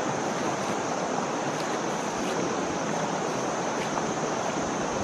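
Steady rush of flowing river water around bathing Asian elephants, with a constant high-pitched hiss above it.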